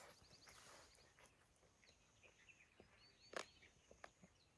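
Near silence: faint bird chirps and soft chewing, with one short click a little over three seconds in.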